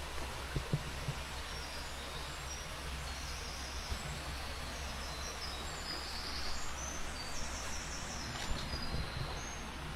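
Small birds chirping in many short, high notes over a steady rush of flowing water, with a few soft footsteps in the first second.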